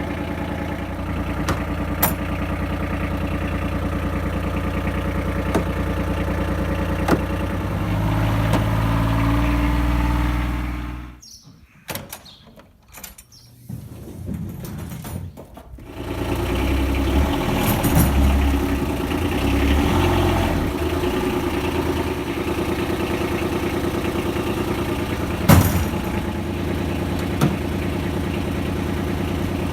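Kawasaki Mule Pro-DX's three-cylinder diesel engine running steadily. The sound falls away for a few seconds around the middle, then comes back, and there are two short knocks later on.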